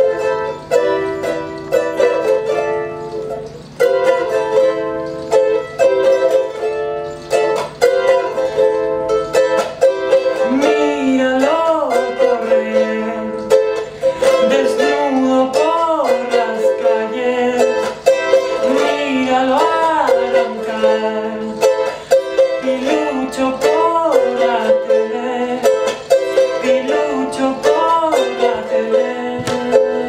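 Ukulele strummed in a steady rhythm. About ten seconds in, a man's wordless voice joins with a short phrase that swells and falls, repeated roughly every four seconds.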